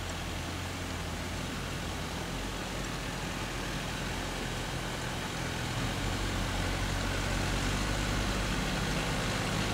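Dump truck engine running steadily as the truck comes slowly down a dirt track, getting louder about six seconds in as it draws closer.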